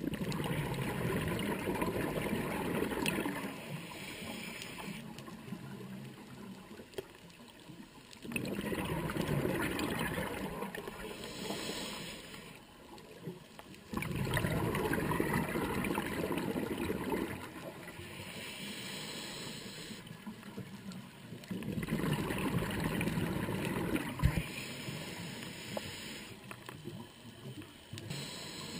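Scuba diver breathing through a regulator underwater: four long bursts of exhaled bubbles gurgling, each lasting a few seconds and coming about every six seconds, with quieter stretches between breaths.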